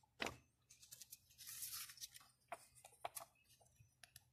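Faint handling of paper album inserts, a stiff card and a paper receipt, being shuffled and lifted: scattered small clicks and taps, with a longer paper rustle about a second and a half in.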